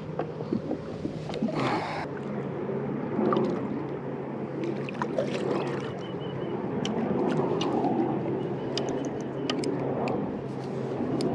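Water splashing and sloshing against a kayak hull as a hooked stingray thrashes at the surface beside it, with a burst of splashing early and many small sharp clicks later.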